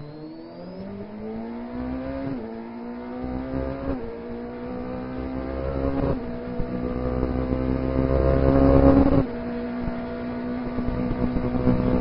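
Onboard sound of a Formula Two car's turbocharged four-cylinder engine accelerating hard, its pitch climbing through the gears with quick upshifts about every two seconds. About nine seconds in the driver lifts off, and the engine drops to a quieter, steady note.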